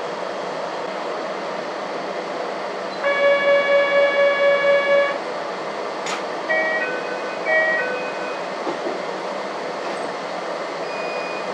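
Inside a narrow-gauge electric train waiting to depart: steady running hum, then an electronic buzzer pulsing about four times a second for some two seconds. A sharp knock follows, then two short chimes, signals ahead of departure.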